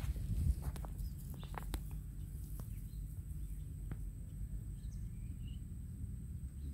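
Light rustling and soft steps in grass during the first couple of seconds, over a steady low outdoor rumble, with a few faint bird chirps around the middle.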